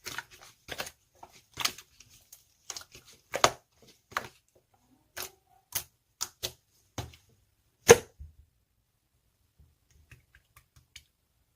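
Slime being pressed and worked by hand, making an irregular string of sharp clicks and pops, the loudest about eight seconds in, then only faint small ticks.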